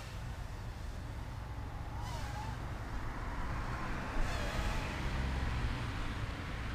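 Phoenix Flight Gear 110mm micro quadcopter with 8 mm 0820-15 brushed motors whining high overhead, its pitch rising and falling with the throttle. Under it, a steady low rumble of wind on the microphone.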